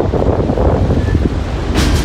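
Wind buffeting the microphone: a steady, loud low rumble, with a brief higher hiss near the end.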